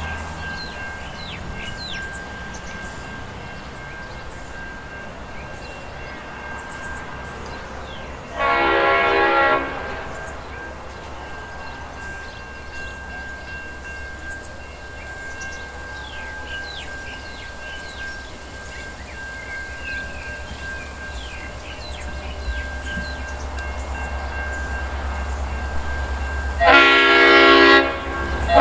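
Multi-tone horn of QUBE's G-class diesel-electric locomotive G532, sounded in two blasts of about a second and a half each, one about eight seconds in and one near the end, as the train approaches. The locomotive's engine rumble grows louder towards the end, with birds chirping faintly.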